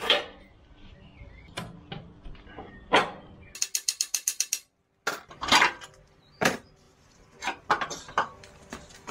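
Scattered knocks and clanks of tools and steel suspension parts being unbolted and handled, with a ratchet wrench clicking rapidly for about a second partway through.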